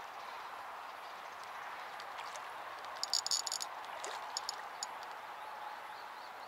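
Slingshot fishing reel clicking in quick runs as a hit carp fights and pulls on the line, over a steady background hiss. The first run starts about three seconds in, with shorter ones after.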